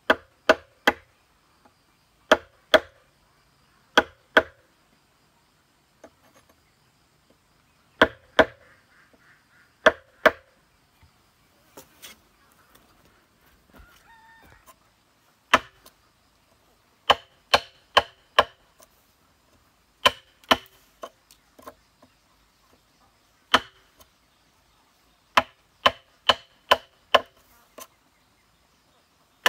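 A wooden mallet knocking a chisel into a green bamboo pole to cut a notch. The knocks are sharp and come in pairs and threes with short pauses between, with a longer lull near the middle.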